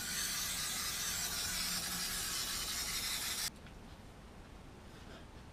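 Aerosol can of 3M Super 77 spray adhesive spraying in one continuous hiss for about three and a half seconds, cutting off suddenly.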